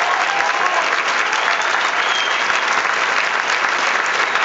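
Large audience applauding, a dense, steady clapping that holds its level throughout.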